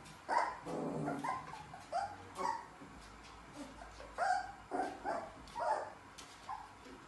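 Puppies giving short, high-pitched yips and whimpers, about ten calls in two bursts with a short lull between them.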